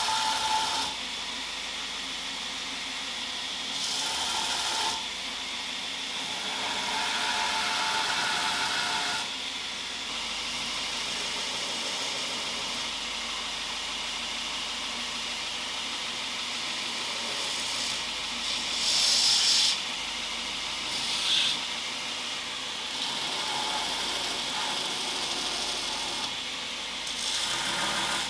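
Belt grinder running steadily, with the hiss and rasp of a knife handle pressed against the sanding belt in several passes of a few seconds each.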